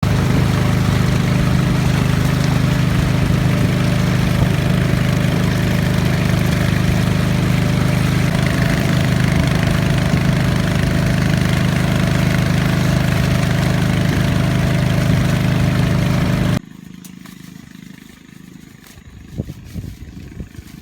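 A small engine running steadily at an even speed. It cuts off abruptly about three-quarters of the way through, leaving much quieter sound with a few knocks.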